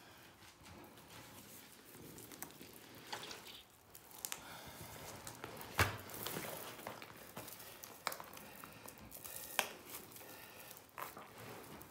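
Scattered knocks and clicks with rustling, as of things being handled in a small room. The loudest knock is about six seconds in, another sharp one near ten seconds.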